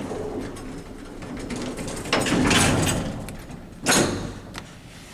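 Doors of an original Xpress lift sliding, a rumble swelling about two seconds in, then shutting with one sharp thud near four seconds.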